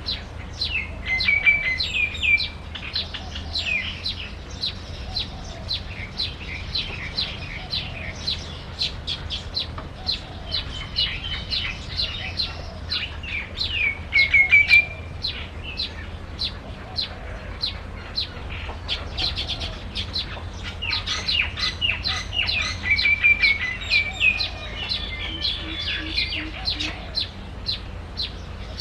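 Small birds chirping rapidly and continuously, many short high-pitched chirps overlapping.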